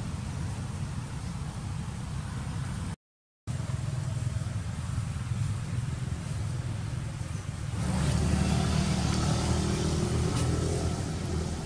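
Steady low outdoor background rumble that cuts out for about half a second roughly three seconds in and grows louder, with more hiss, about two-thirds of the way through.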